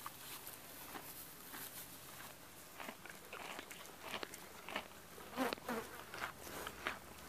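Flies buzzing close by, mixed with soft crunching of horses chewing hay. Scattered knocks and rustles grow busier in the second half as a foal's muzzle nuzzles against the camera.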